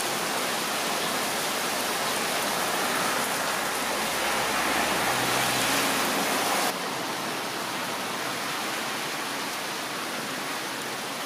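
Heavy rain pouring down in a steady hiss, splashing on paving. It drops suddenly to a somewhat lower level a little past halfway.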